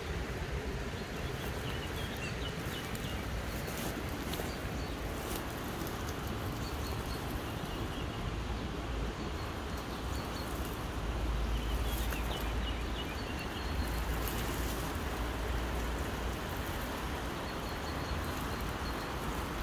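Steady rushing outdoor noise with a low wind rumble on the microphone, stronger about halfway through, over scattered crackles of dry leaves and twigs under an RC scale crawler's tyres. Faint bird chirps come in now and then.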